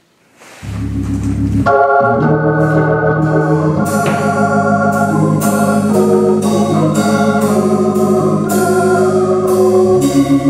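Organ music: a low bass note comes in just under a second in, and sustained chords join about a second later, moving over a steady beat.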